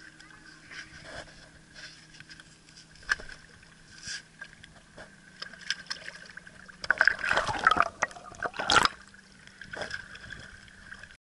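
Water splashing and sloshing against shoreline rocks, in scattered small splashes with a louder burst about seven to nine seconds in, as a caught smallmouth bass is put back into the water. A faint steady hum runs underneath.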